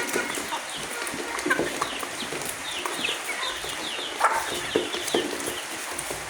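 A flock of chickens clucking and calling while being fed, many short overlapping calls with scattered sharp clicks.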